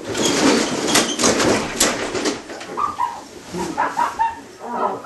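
Nylon sleeping bags rustling and swishing, with knocks, as bodies wrapped in them scuffle and tumble onto the floor. After about two and a half seconds the rustling dies down and short high-pitched vocal cries take over.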